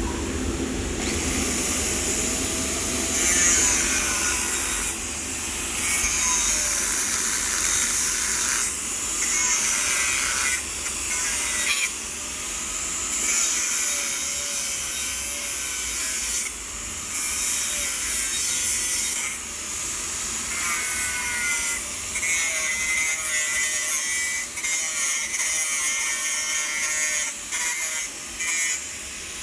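TIG welding arc on steel pipe hissing steadily during a root pass, cut by brief breaks a dozen or so times.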